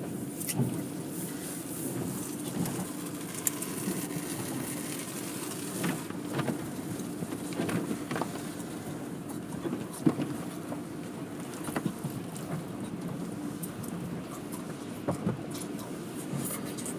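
Automatic car wash heard from inside the car: cloth strips and brushes slapping and knocking irregularly over the windshield and body, over a steady low hum.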